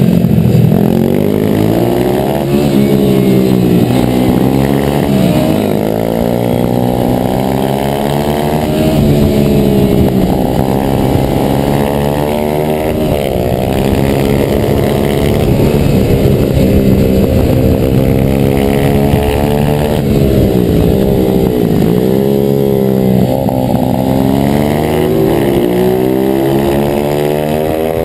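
Onboard sound of a YX140 pit bike's single-cylinder engine racing: the revs climb hard through the gears, then drop off as it brakes into each corner, again and again, with wind rushing over the microphone.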